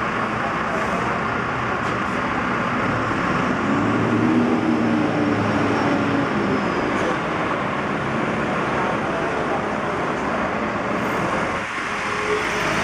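Steady road traffic noise, a continuous rumble and hiss.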